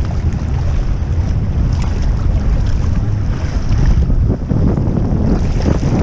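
Wind buffeting the microphone over rough, choppy sea, with waves splashing against a kayak's hull.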